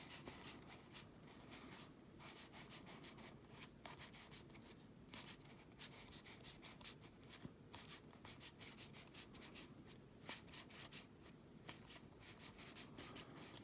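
Pokémon trading cards being flipped through by hand: a faint, irregular run of soft rubs and flicks of card against card.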